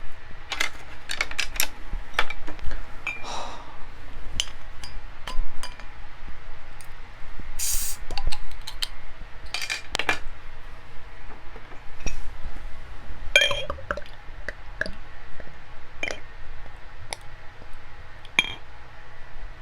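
Table utensils and dishes clicking and clinking, with glass knocks now and then, as someone eats a meal. There is a short hiss about eight seconds in.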